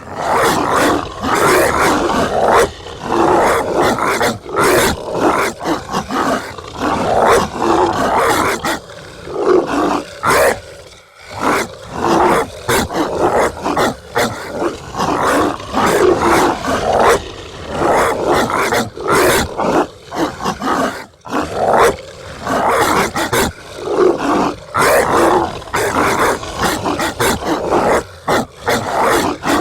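Zombie dog sound effect: a monstrous dog barking and growling in a long run of dense bursts with short pauses, the longest pause about eleven seconds in.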